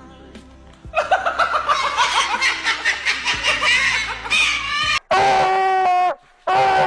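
Rapid cackling laughter for about four seconds, then two long, steady wailing cries about a second each, with a short gap between them.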